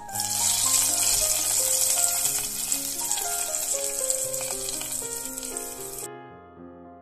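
Hot oil tempering of mustard seeds, cumin, dried red chillies and curry leaves poured from a small pan onto yogurt rice, sizzling loudly the moment it lands. The sizzle dies away gradually and stops about six seconds in.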